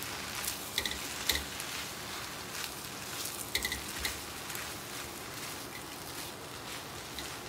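Fried rice sizzling in a wok as a metal spatula stirs and scrapes through it, with scattered clinks of the spatula against the wok, most of them in the first half.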